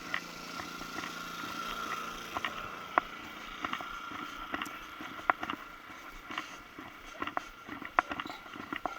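Scattered clicks and knocks of gear being handled and set down on a shelf, over a faint steady high-pitched hum.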